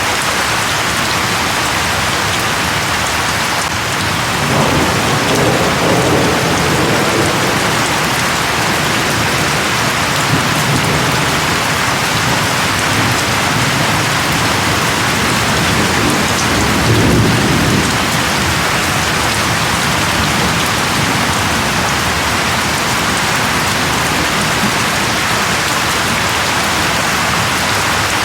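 Steady rain falling as a constant loud hiss, with a low rumble of thunder rolling in about four seconds in and swelling again a little past the middle.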